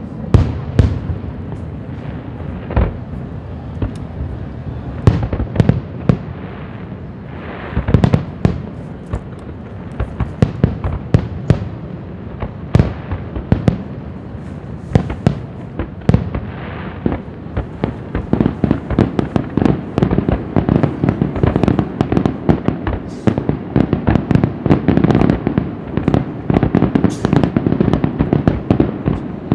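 Aerial firework shells bursting in a string of loud bangs. About two-thirds of the way through the reports come much faster, merging into a dense, rapid barrage.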